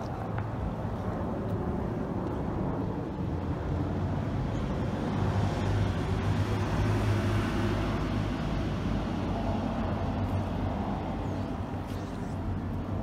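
Low engine drone over outdoor city background noise, swelling to its loudest about five to seven seconds in and then easing off, like something with a motor passing by.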